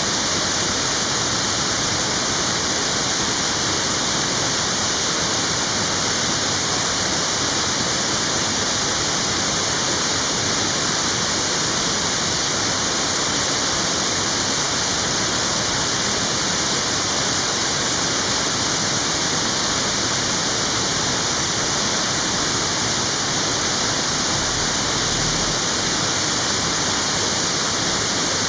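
Waterfall pouring down: a loud, steady rush of falling water that never changes.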